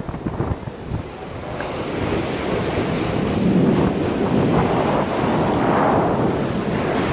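Sea surf washing up on a beach, swelling after about a second and a half, with wind buffeting the microphone in the first second.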